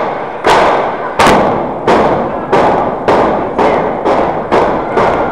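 A steady rhythm of loud thuds, about three every two seconds, each trailing off in a short echo.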